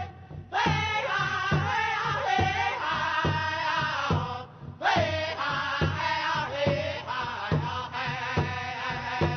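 Native American song: voices singing chant-like phrases over a steady drumbeat of about two beats a second, with brief pauses between phrases about half a second in and again around four and a half seconds.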